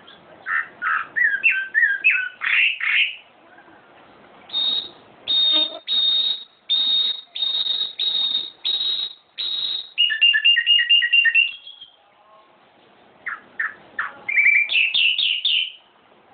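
Songbird singing in varied phrases: quick chirps and sweeps, then a series of loud repeated whistled notes about two a second, then fast trills at a lower pitch.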